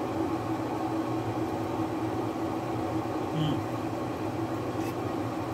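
A steady mechanical hum made of a low drone and a higher steady tone. A brief faint sound comes about three and a half seconds in, and a soft click near the end.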